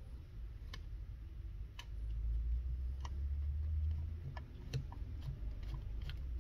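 Scattered light metallic clicks and taps, about ten spread unevenly and coming faster near the end, from a flathead screwdriver and screws as the butt plate screws are worked out of a shotgun's wooden stock. A low rumble runs for about two seconds in the middle.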